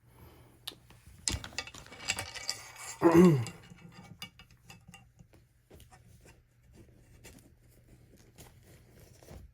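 Close handling noise: light clicks, rattles and rustling, with one short, loud sound falling in pitch about three seconds in, then scattered ticks.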